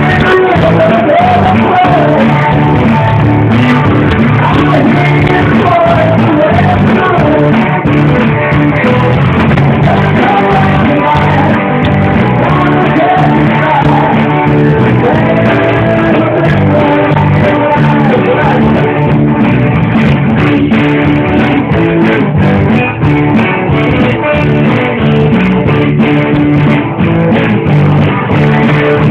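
Live band playing loudly, with a singer and guitar.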